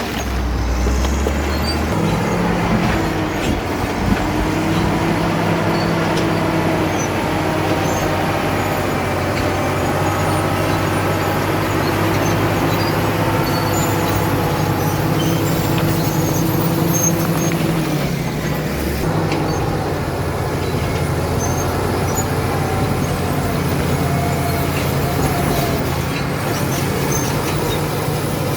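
Caterpillar D7 bulldozer's diesel engine running steadily under work, its pitch dipping and rising a little a couple of times.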